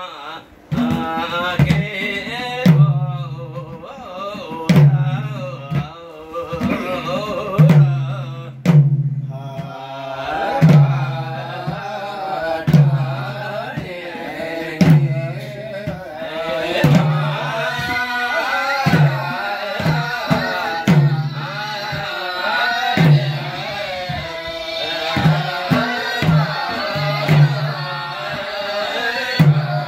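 Voices singing together to madal hand drums. A deep, ringing drum stroke falls about once a second under the song, with a brief break about nine seconds in.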